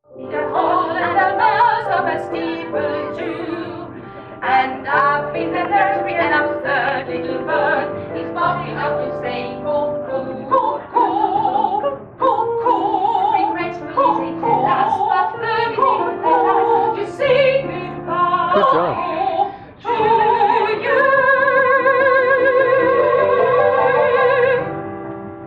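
Music: a woman singing in an operatic style with strong vibrato over instrumental accompaniment, ending on a long held note near the end.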